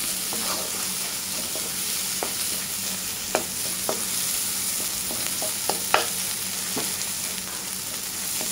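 Dried shrimp and spice paste sizzling in oil in a wok, stirred with a wooden spatula that scrapes and knocks against the pan now and then, the sharpest knock about six seconds in.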